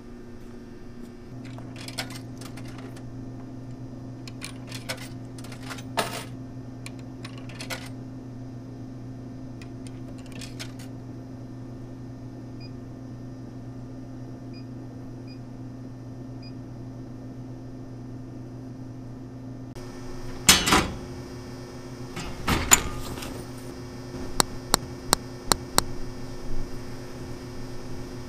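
Vending machine in use: a steady low electrical hum with scattered button clicks and a few faint high beeps. About twenty seconds in come two loud thumps, then a quick run of five sharp clicks.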